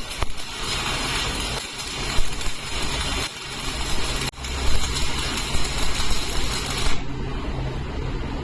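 Electric welding arc crackling and hissing steadily over a low machine hum; the crackle cuts off about seven seconds in, leaving the hum.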